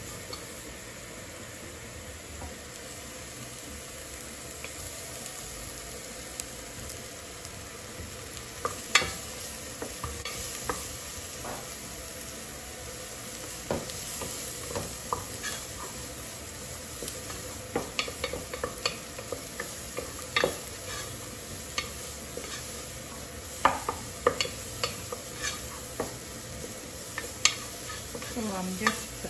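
Chopped onions sizzling in hot oil in a metal pot as they sauté toward brown, stirred with a wooden spoon that knocks and scrapes against the pot, the knocks coming more often in the second half.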